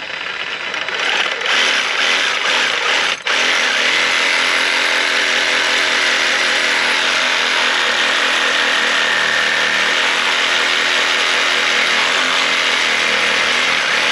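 Cordless reciprocating saw cutting through a window bump-out. It runs unevenly for the first three seconds, stops briefly, then cuts steadily at full speed.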